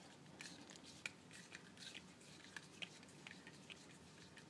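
Faint, irregular small clicks and scrapes of a folding hex key turning a screw held in pliers, threading a tight 3D-printed plastic shim onto it.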